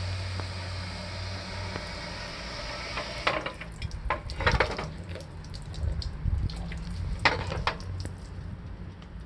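Water running steadily with a low hum, likely through a Rinnai small open-type gas water heater. About three seconds in, the steady flow gives way to irregular splashes and knocks.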